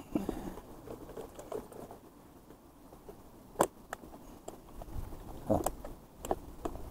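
Scattered plastic clicks and knocks from a hand working the switch on the lid of a battery-powered bait-bucket aerator that will not start. The owner puts the fault down to a bad contact. The sharpest click comes about halfway through, with a few more near the end.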